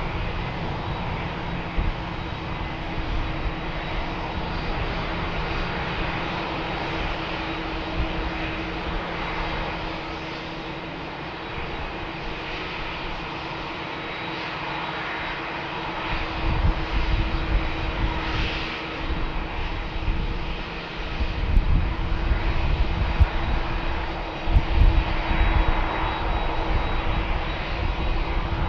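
Boeing 747-400's four turbofan engines running at takeoff power: a steady jet noise with a constant hum. From about sixteen seconds in, a deeper, uneven rumble comes in and grows louder.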